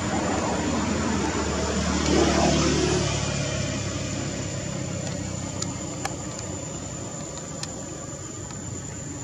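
A motor vehicle's engine passing by, its hum growing to its loudest about two seconds in and then slowly fading, with a few faint ticks later.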